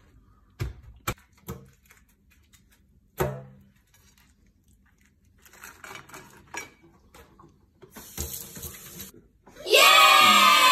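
A few sharp knocks and clicks of cooked lobster being split and handled on a wooden cutting board. Near the end several voices break into a loud, drawn-out cheer.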